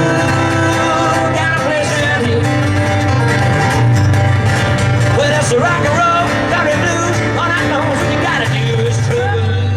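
Country-style music with guitar over steady held bass notes.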